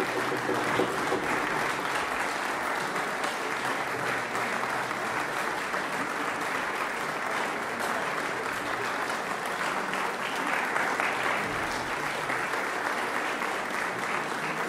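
Audience applauding steadily, dense clapping with no breaks.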